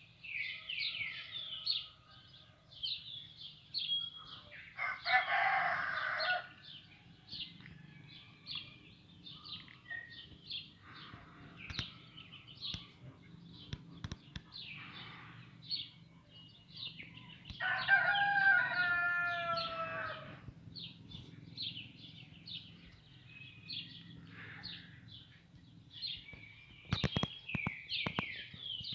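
Small birds chirping throughout, with a rooster crowing twice: a rougher crow about five seconds in and a clearer, longer one about eighteen seconds in. A few sharp clicks near the end.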